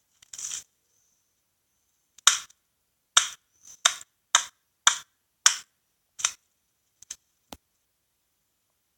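A series of sharp chopping knocks from a cutting tool, seven evenly spaced strikes a little over half a second apart, then two fainter ones.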